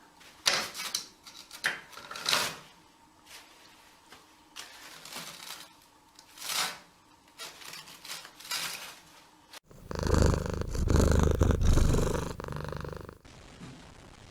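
Domestic cat sounds: scattered soft rustles and light knocks, then about ten seconds in a louder stretch of low purring rumble lasting about three seconds that cuts off suddenly.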